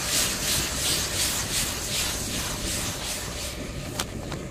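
Fish pieces and thick masala sizzling and sliding in a steel kadhai as it is swirled and tossed over the flame, the hiss swelling and fading about two or three times a second. A few sharp clicks near the end.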